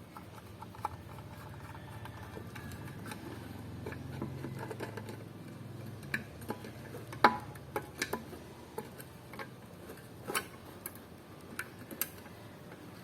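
Irregular light clicks and taps from a plastic solar light being handled and fitted, with one sharper knock about seven seconds in, over a low steady hum.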